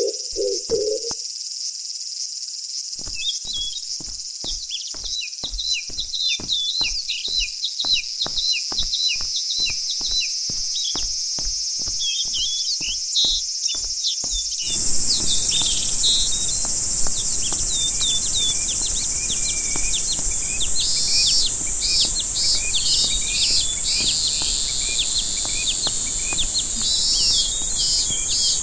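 Summer nature soundscape: small birds chirping over a steady high buzz of insects. A regular train of clicks runs through the first half. Partway through, the insect buzz suddenly becomes much louder and fuller, and pulsing high insect or bird calls join near the end.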